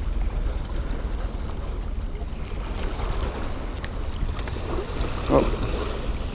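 Wind rumbling on the microphone over small bay waves lapping against the rocky shore, with a light click about four seconds in.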